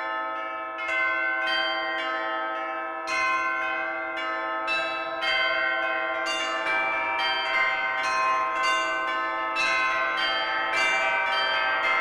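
Bells ringing: a run of struck notes that ring on and overlap, the strikes coming faster, about two or three a second, from about three seconds in.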